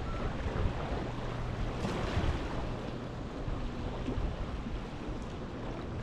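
Sea waves washing in, with one fuller surge of wash about two seconds in, over wind rumbling on the microphone and a faint steady low hum.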